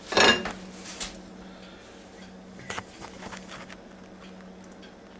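Paper towel rustling as it pats a steak dry on a plate, in one short burst at the start. A few light clicks and taps of handling follow over a faint steady low hum.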